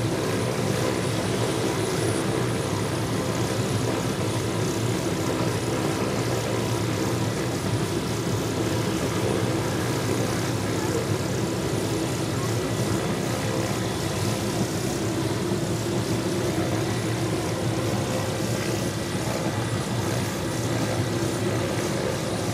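A Hughes OH-6 Loach and a Bell UH-1H Huey helicopter running on the ground with their rotors turning. It is a steady turbine whine mixed with rotor noise, holding level throughout.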